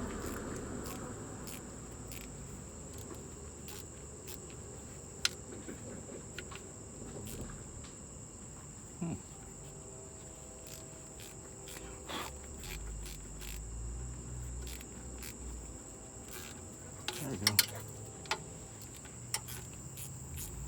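Insects trilling steadily in one high, unbroken tone, with a few scattered sharp clicks and knocks from hand work on the transmission pan.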